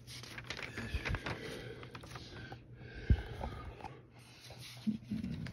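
Sheets of an old newspaper rustling and crinkling as they are handled and turned, in two spells with a lull between. There is a soft bump about three seconds in.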